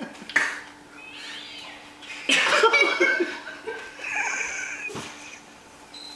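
A man laughing, loudest a little over two seconds in, along with a cat's drawn-out meowing played through laptop speakers.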